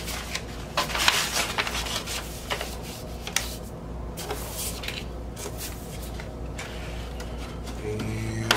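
Paper rustling and sliding as a vinyl LP's paper inner sleeve and gatefold cardboard jacket are handled on a desk, in uneven bursts with a few sharp taps and clicks. A steady low hum sits underneath.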